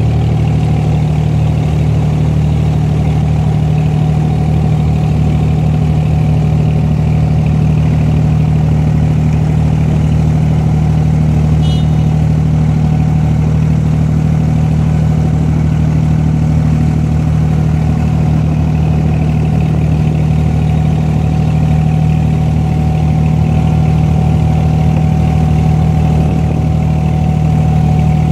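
Boat engine running steadily, with water rushing along the hull. A brief faint high chirp comes about twelve seconds in.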